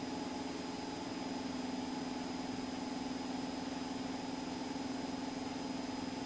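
Cessna 172 Skyhawk's piston engine and propeller droning steadily in flight, heard inside the cockpit. A faint steady high-pitched tone sits above the drone.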